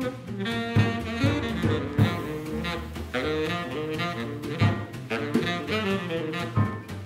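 Small swing-style jazz group playing live: saxophone carrying the melody over piano, double bass and drums.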